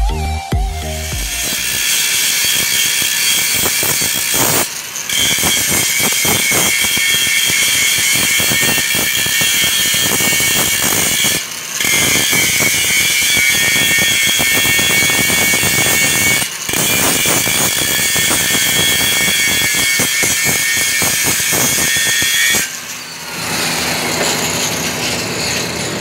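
Handheld angle grinder grinding a steel pipe: a loud, steady, high-pitched whine with the hiss of the disc on metal, broken by three brief gaps. It stops a few seconds before the end, leaving quieter shop noise.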